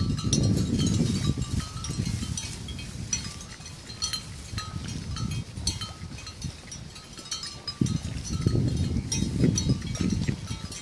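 Bells on grazing water buffalo clinking irregularly, short bright strikes every half second or so. Under them is a low, uneven rumbling noise, louder at the start and again near the end.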